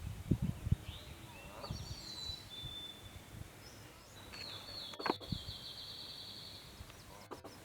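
Small birds calling over outdoor ambience: a few short high chirps about two seconds in, then one long high trill lasting over a second from about four seconds in. A few low thumps near the start.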